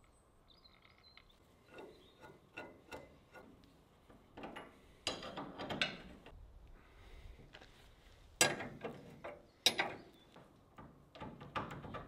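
Spanner tightening the hex bolts of a steel plate: a run of sharp metallic clicks and clanks, sparse at first and louder in a few bunches in the second half.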